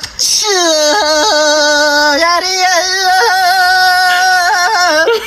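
A person's voice holding one long sung note in the manner of a Tibetan folk song. It slides down at the start, drops a step about two seconds in, and wavers in small turns near the end. It is a mock sneeze drawn out into a song.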